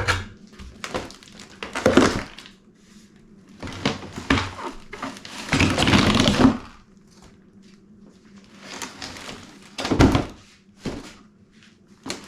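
Bike packaging being handled and pulled off: a series of rustles and crinkles with knocks, the longest rustle about six seconds in and a sharp knock about ten seconds in.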